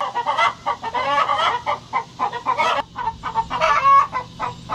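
Several chickens clucking: a busy run of short, quick calls that overlap one another.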